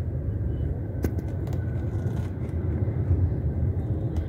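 Steady low rumble of a Tata Nexon's engine and tyres heard from inside the cabin while driving, with a faint click about a second in.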